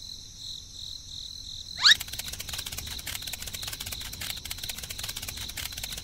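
Steady high chirring of insects. About two seconds in, a quick rising whistle, followed by a fast, even ticking.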